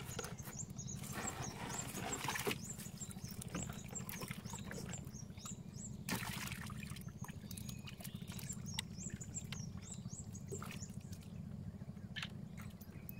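Water trickling, dripping and splashing off a wet gill net as it is hauled over the side of a wooden canoe, with small knocks from handling the net and fish. The heaviest splashing comes twice, about a second in and again about six seconds in, over a steady low hum.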